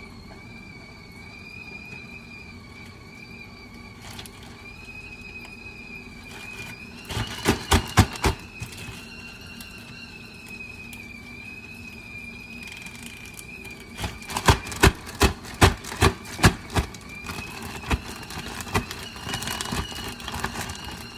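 A kettle of boiling water whistles with a steady, slightly wavering high tone throughout. Two quick runs of sharp taps or knocks come about seven seconds in and again around fourteen to seventeen seconds.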